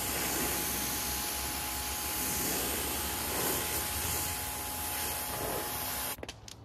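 Water spraying hard from a hose nozzle onto a car's bodywork, rinsing soap off. It runs as a steady hiss with a thin steady tone under it, then cuts off abruptly about six seconds in with a few clicks.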